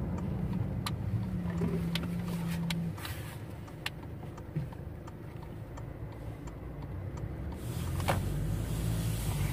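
Car cabin sound while driving: engine and road noise under a steady low hum, with scattered light clicks, growing a little louder near the end.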